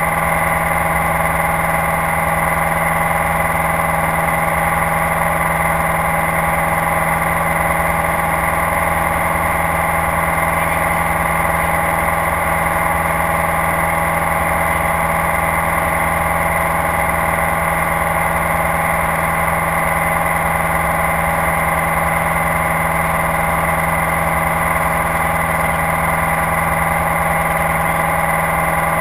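Light aircraft's engine and propeller heard inside the cabin in cruising flight: a loud, steady drone holding one pitch throughout.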